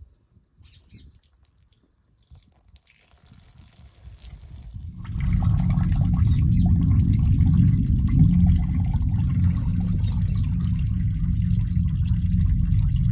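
A low, steady rumble swells in about five seconds in and holds, with wet dripping sounds over it.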